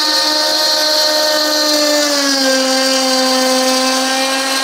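A handheld wood router mounted as the spindle of a CNC machine runs at high speed with a steady whine while cutting through a wooden board. Its pitch drops slightly about two seconds in.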